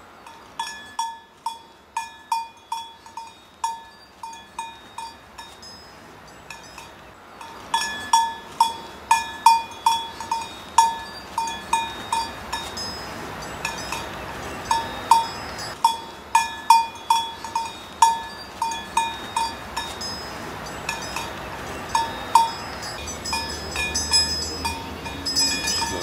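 A single cowbell clanking at the same pitch in irregular runs of strikes, a few a second, with short pauses between runs, over a faint steady rushing hiss.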